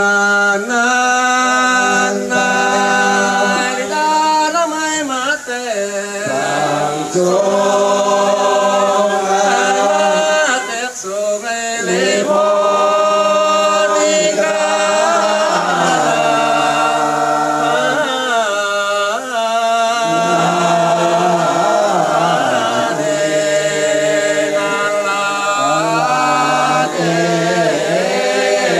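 A group of voices singing a traditional Dayak Kenyah chant together, holding long notes that slide from one pitch to the next, in long phrases with short breaks between them.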